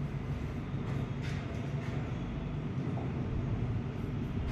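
Steady low hum of room noise, with a faint tap or scratch now and then from a stylus writing on a touchscreen board.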